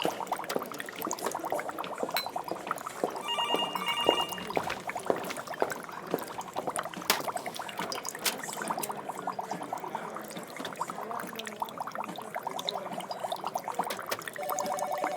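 Laboratory ambience: liquid bubbling and pouring under a dense crackle of small clicks. A trilling electronic beep sounds briefly about three seconds in, and another warbling two-tone electronic signal starts near the end.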